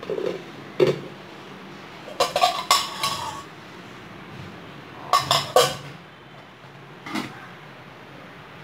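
Metal kitchen utensils and pot lids clinking and clattering against steel pots and bowls, in four short bursts of knocks and clinks: at the start, around two to three seconds in, around five seconds in, and once near seven seconds.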